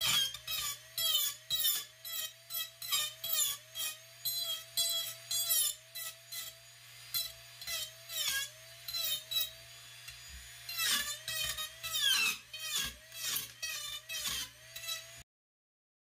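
High-speed rotary carving tool with a small cutter bit, its motor holding a steady whine that dips each time the bit bites into the wood, over short scratchy strokes, about two a second, as fine hair lines are cut into wood. The sound cuts off suddenly near the end.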